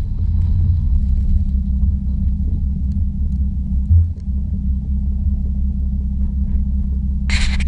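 The 3.2 VR6 of a Mk5 Golf R32 with its catalytic converters removed, running at a steady engine speed with a deep, even exhaust rumble. There is a brief thump about halfway through and a short loud rush of noise near the end.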